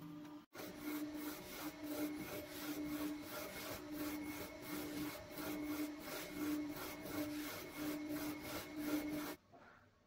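UV flatbed printer printing, its printhead carriage shuttling back and forth over the bed. It makes a rasping mechanical whir with a low hum that swells about once a second, and stops suddenly near the end.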